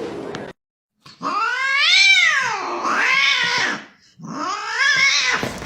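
A cat yowling: two long, drawn-out calls, each rising and then falling in pitch.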